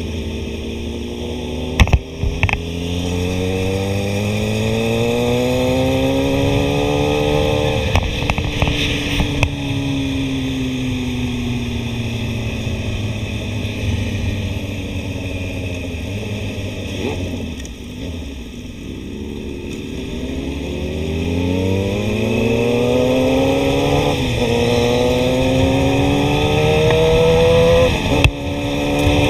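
Suzuki GSX-R1000 inline-four engine heard from the rider's seat, revs climbing under acceleration, falling away slowly as the throttle closes, then climbing again with a brief dip near the end as it shifts. A steady rush of wind noise runs underneath, with two sharp knocks about two seconds in.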